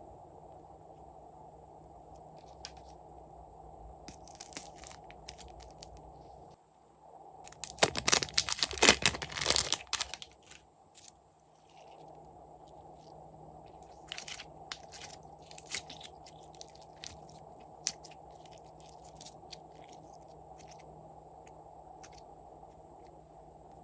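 Glossy slime being worked by hand, giving crunchy crackles and pops: scattered clicks, a dense run of crackling about eight to ten seconds in, then more scattered clicks. A steady faint hum runs underneath.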